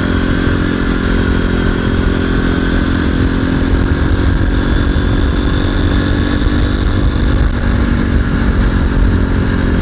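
Single-cylinder 250 cc off-road motorcycle engine running at a steady cruising speed, its pitch holding even, with wind rumble on the rider's microphone.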